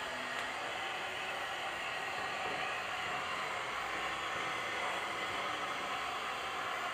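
Electric heat gun blowing steadily with an even hiss while heat-shrinking tint film onto a car's rear windshield.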